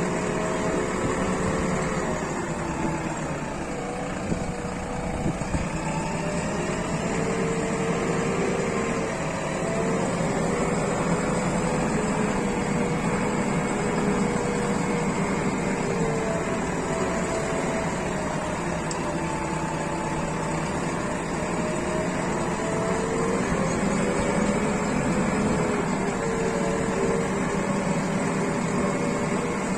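JCB 3DX Plus backhoe loader's diesel engine running steadily, its pitch drifting slowly up and down.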